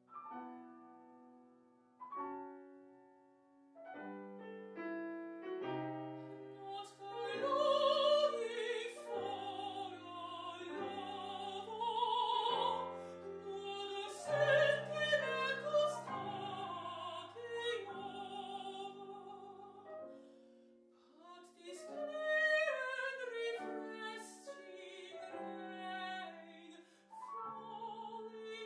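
Classical art song: a mezzo-soprano singing with vibrato over grand piano accompaniment. The piano plays alone for the first several seconds before the voice comes in, and both pause briefly about two-thirds of the way through.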